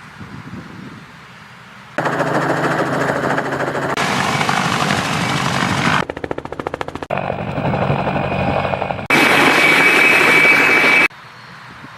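Helicopter engine and rotor sound in short clips spliced together, the level and character changing abruptly every second or two. About six seconds in comes a rapid, even chopping of rotor blades.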